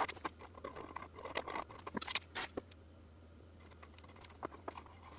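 Scattered light clicks and taps of small objects being handled, over a faint steady hum.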